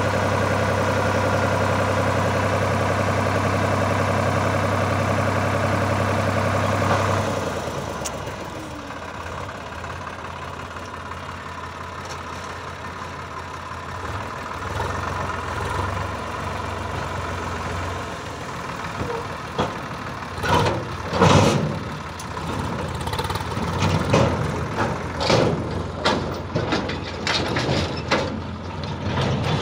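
Sonalika DI-740 tractor engine running at high steady revs while the hydraulic lift tips the loaded trolley. The revs drop back to a quieter idle about seven seconds in. Later come a series of irregular thumps and rattles.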